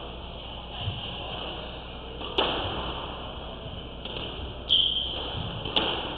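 Squash ball being struck by racquets and smacking off the court walls during a rally: three sharp cracks, the first about two and a half seconds in, then two more close together near the end.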